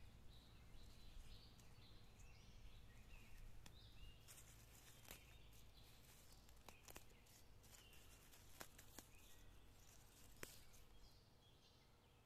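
Near silence in an open meadow: faint bird chirps, and from about a third of the way in a scatter of small sharp snaps as wild greens are plucked by hand.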